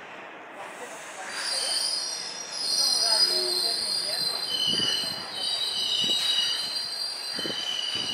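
Steel wheels of a passenger train squealing against the rails in several high, steady screeches, with a few dull knocks of wheels over rail joints in the second half.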